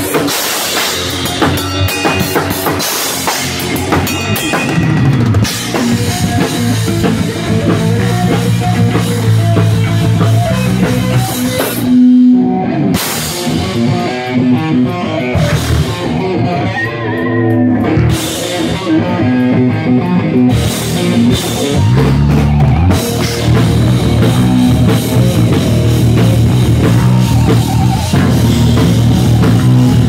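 Metal band playing an instrumental riff live on stage: a drum kit with cymbals and bass drum under electric guitars. About twelve seconds in, the drums drop out for a moment while a guitar note is held, then the band comes back in.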